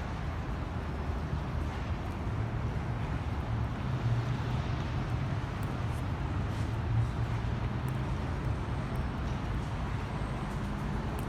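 City street traffic: a steady low rumble of passing vehicles, with one engine's hum swelling about two seconds in and fading away after about eight seconds.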